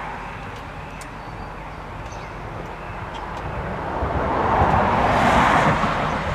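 1991 Yamaha FZR1000 motorcycle running on the road with a steady rush of wind noise. The rush swells to its loudest about five seconds in, then eases.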